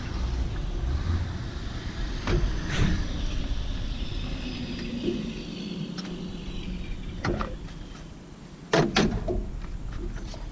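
Serpentine belt being worked off the pulleys of a GM LS2 V8 with the engine off, the rubber rubbing and squeaking faintly as it slides. Several sharp metallic clanks, loudest as a double clank near the end, come from the tensioner and tools.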